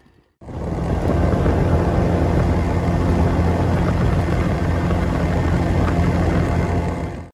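A small fishing boat's outboard motor running steadily at speed, with a low, even drone. It starts abruptly just after the beginning and cuts off at the end.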